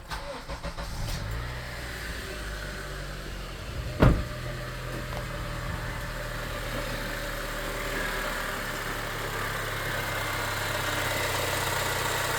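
Honda CR-V engine starting and idling, with one sharp click about four seconds in and a whooshing from the radiator cooling fans that grows from about eight seconds on. The compressor and fans are running although the A/C is switched off, an electrical fault that the owner puts down to the heater control unit.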